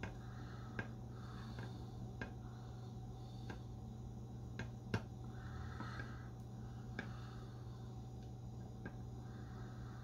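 Soldering iron heating solder paste on a circuit board's capacitor pads: faint, sharp clicks and pops at irregular intervals as the flux crackles, over a steady low electrical hum.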